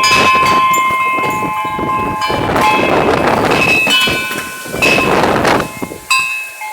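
Metal wind chimes ringing with long, overlapping tones while gusts of storm wind blow on the microphone, two strong rushes coming about halfway through and near the end.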